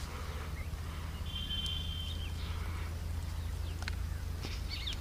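Outdoor ambience: a steady low rumble with a short high bird trill about a second and a half in and a few brief bird chirps near the end.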